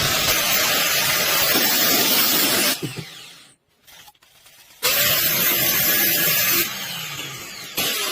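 Power tool running with a harsh, steady hiss. It cuts off abruptly about three seconds in, starts again about two seconds later, then runs lower toward the end.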